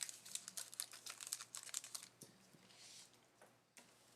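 Trading cards and pack wrapper being handled: quick, faint clicks and crinkles as cards are flipped through, thinning out and going nearly quiet near the end.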